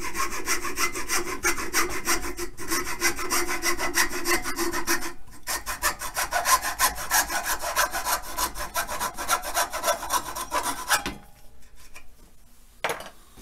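Fine-bladed hacksaw cutting through a 5/8-inch oak dowel rod clamped in a vise, in quick back-and-forth strokes with two brief pauses. The sawing stops about eleven seconds in, followed by a couple of light knocks.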